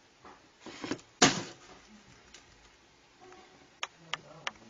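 A few sharp taps and knocks: one loud knock about a second in, and three quick clicks near the end.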